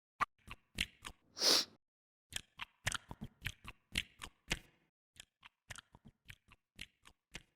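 Foley chewing-gum sound: irregular wet smacks and clicks of gum being chewed with the mouth open, with one louder hissing burst about a second and a half in.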